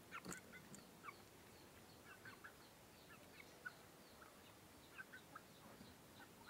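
Faint, scattered short bird chirps and peeps, with one sharp click about a quarter second in; no rooster crow is heard.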